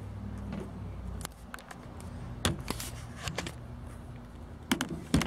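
Light knocks and clatter of a laptop being handled and set down on a glass tabletop, a few scattered knocks first and a sharper cluster near the end, over a low steady hum.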